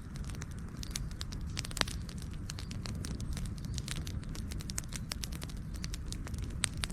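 Campfire burning, wood crackling and popping in irregular sharp snaps over a low, steady rumble of the flames, with one louder pop about two seconds in.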